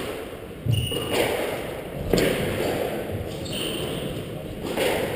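Squash rally: sharp cracks of the ball off rackets and walls, three loud hits about every two seconds, with short high squeaks of court shoes on the wooden floor between them.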